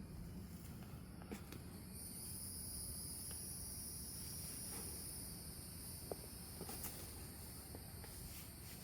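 Insects trilling outdoors: a steady high-pitched drone that comes in about two seconds in and fades near the end, with a few faint ticks and scrapes and a low rumble underneath.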